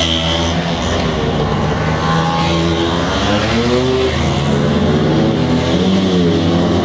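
Several motor scooters riding past one after another, their engines running and revving, with overlapping engine notes that rise and fall as each one goes by.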